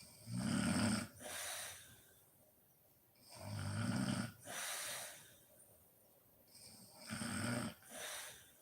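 A sleeping woman snoring: three snores roughly three and a half seconds apart, each a low rasp followed by a softer, airy breath.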